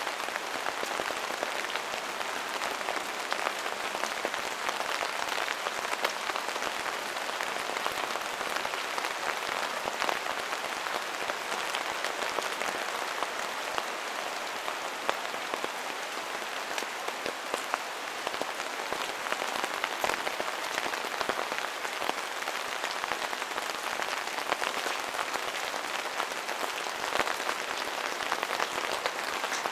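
Steady rain falling, a dense even hiss scattered with many sharp individual drop ticks.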